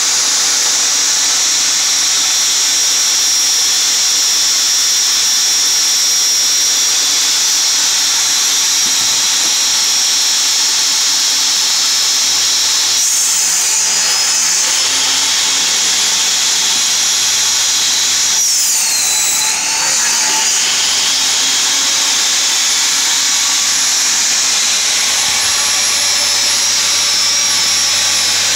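Einhell TE-TS 1825 U table saw running with a steady, high-pitched motor whine. Twice, about halfway through and again some five seconds later, the whine drops in pitch and recovers as the blade takes load cutting wood.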